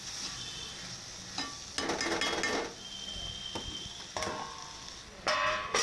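Metal kitchen utensils scraping and clinking against metal cookware, several times, some strikes leaving a brief ring, over a steady hiss.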